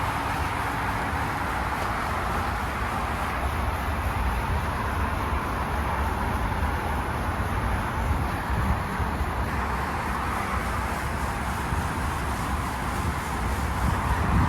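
Outdoor air conditioner unit running: a steady fan rush over a low hum.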